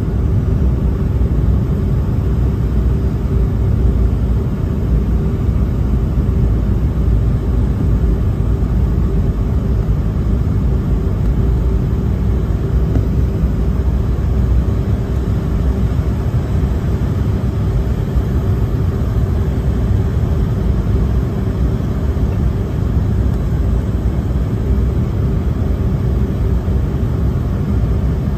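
Steady airliner cabin noise on descent: a low rumble of the engines and rushing air, with a steady hum running through it.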